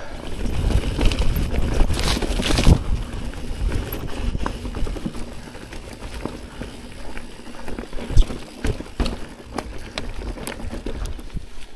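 Mountain bike rolling along a leaf-covered dirt trail: tyres crunching over dry leaves and dirt with scattered knocks and rattles from the bike. The noise is loudest in the first three seconds, and there is a sharp knock about eight seconds in.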